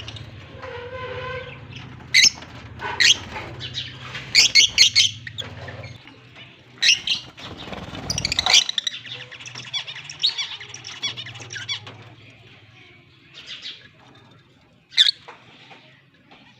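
Fischer's lovebirds giving short, sharp high-pitched chirps, singly and in quick clusters, over a low steady hum that stops about twelve seconds in.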